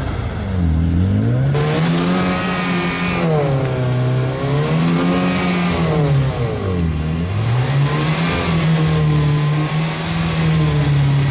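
Vehicle engine revving up and down repeatedly, its pitch rising and falling in slow swells about every three seconds.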